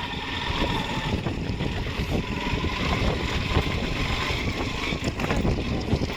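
A vehicle travelling along a rough road, its running drowned in wind buffeting the microphone as a steady low rumble.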